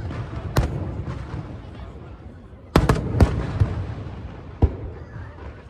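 Aerial fireworks bursting overhead: several sharp booms, about a second in, twice close together near the middle, and once more near the end, each trailing off in a rolling echo.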